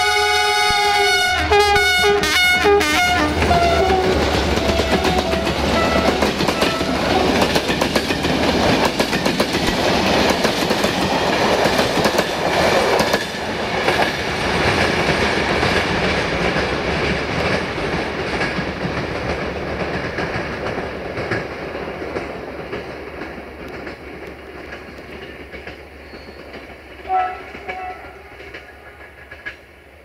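Romanian class 65 diesel-electric locomotive sounding its multi-tone horn chord as the train passes, the chord sliding down in pitch and breaking off after a few seconds. The passenger train's wheels then clatter over the rail joints as it pulls away and fades. A short horn note sounds again near the end.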